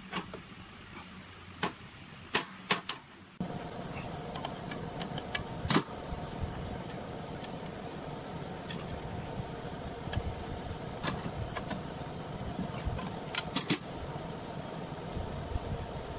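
Metal tools clinking and clanking against engine parts. A steady mechanical hum starts abruptly about three seconds in and carries on under the clinks.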